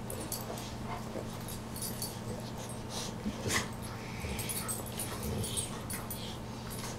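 Two dogs licking and mouthing each other's faces: scattered wet licks and small mouth clicks, with a couple of sharper smacks around the middle.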